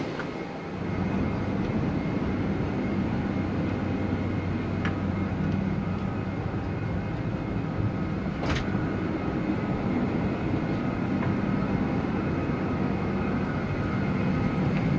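Steady mechanical drone of a parked Boeing 747-400, with a low hum that sets in about a second in and a single sharp click about halfway through.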